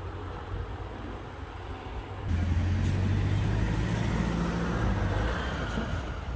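Motor-vehicle engine hum and road traffic noise: a steady low drone with a wash of noise over it, jumping louder about two seconds in.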